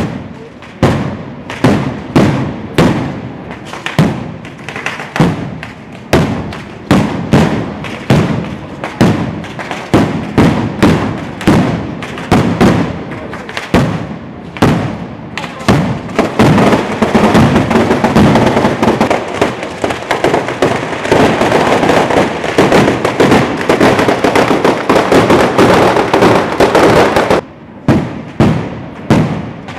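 Festival firecrackers going off as a long run of sharp bangs, about one to two a second. About halfway through they thicken into a dense, continuous crackle for roughly ten seconds, then thin back to single bangs near the end.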